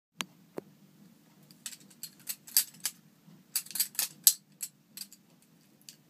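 Bear and Son balisong (butterfly knife) being handled, its metal handles and latch clicking and clacking against each other. Two single clicks in the first second, then a quick, irregular run of sharp metallic clicks that thins out near the end.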